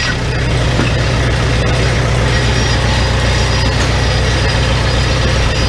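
Farmall 450 diesel's four-cylinder engine running steadily on its gasoline starting system, warming up before the switch-over to diesel, sparked by a newly fitted electronic ignition.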